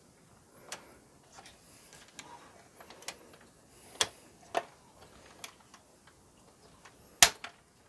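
Irregular light clicks and taps of plastic and metal as the Sony CFD-510 boombox's cassette-deck motor and its metal bracket are handled and fitted back into the plastic chassis, with the sharpest click near the end.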